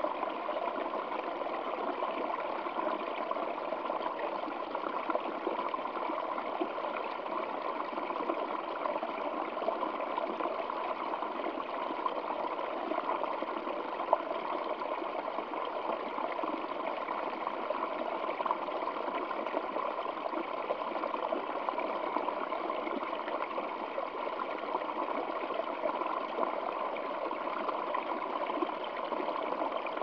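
Small stream spilling in a short cascade over rocks and ice, a steady trickling and splashing, with one brief sharper click about halfway through.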